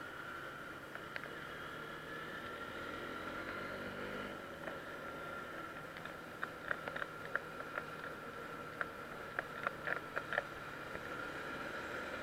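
Motorcycle engine running steadily, with a run of sharp clicks in the second half.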